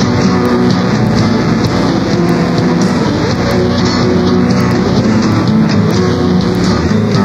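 Instrumental rock music led by guitar, with a drum beat, at a steady loud level.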